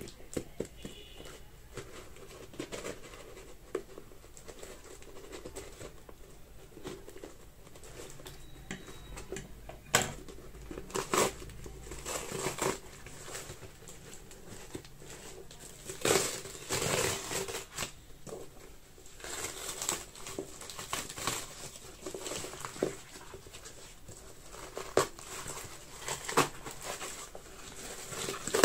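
Accessory packaging being handled and opened: plastic and paper crinkling and rustling, with scattered taps and clicks.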